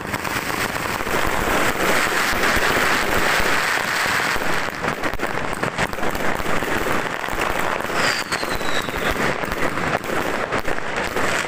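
Fireworks and firecrackers going off all around: a dense, continuous crackle of many overlapping bangs. A whistle falls in pitch about eight seconds in.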